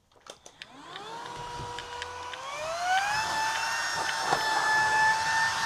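A few clicks, then a vacuum cleaner's motor switching on and spinning up with a rising whine. The whine levels off about a second in, rises again in pitch about two and a half seconds in, and then holds a higher steady whine.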